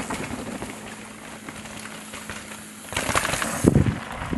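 Downhill mountain bike tyres running over a dirt and rock trail, growing louder from about three seconds in, with wind buffeting the microphone near the end.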